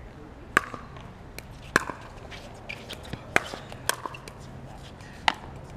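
Pickleball rally: paddles striking the hollow plastic ball in about five loud, sharp pops, spaced roughly a second apart, with fainter ticks between them.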